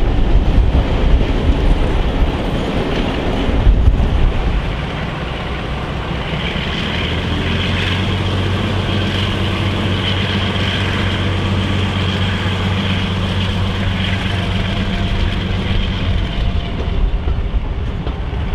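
Class 42 Warship diesel-hydraulic locomotive D821 hauling its train, heard from an open coach window: a loud rumble of wheels and train for the first few seconds, then the steady drone of its twin Maybach V12 diesel engines holding a constant pitch.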